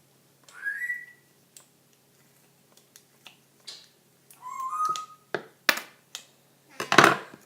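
Scissors snipping through a phone charging cord: a few sharp clicks, then one louder crunch about seven seconds in as the blades cut through. Two short whistle-like chirps rise in pitch, one near the start and one in the middle.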